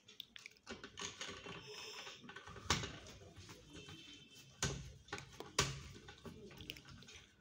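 Clicks, taps and rattles of small parts and tools being handled while a board is fitted into an opened LED TV, with three louder knocks spread through the middle.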